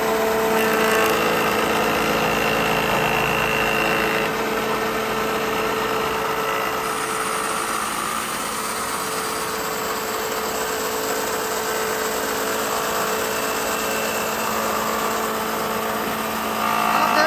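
A 4-in-1 woodworking machine running steadily on its electric motor, with a constant hum, while its planer and chain mortiser are both cutting wood.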